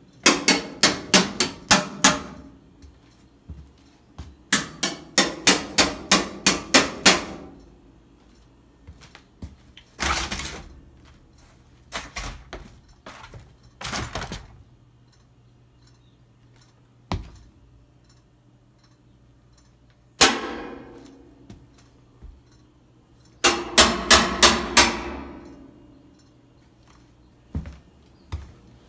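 Banging on the sheet-metal side of a white appliance: three quick runs of knocks, about four a second for roughly two seconds each, with single bangs in between, to rouse an animal hiding behind it.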